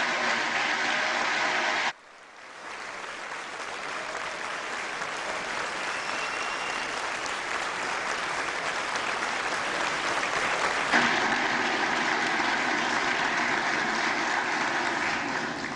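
Sustained applause from a large crowd of House members. It breaks off abruptly about two seconds in, builds back up, swells again about three-quarters of the way through and eases off near the end.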